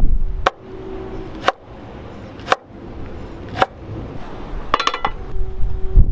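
Cleaver chopping green chilies on a wooden cutting board: single sharp strikes about once a second, then a quick clatter of several knocks near the end.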